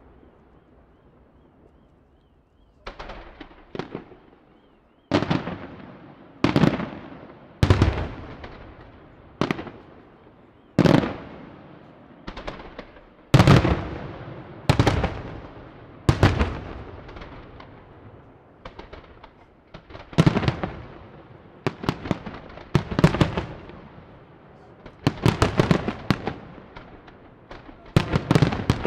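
Aerial firework shells bursting in a fireworks display: a fading crackle for the first few seconds, then sharp booms about once a second, each one trailing off as it dies away.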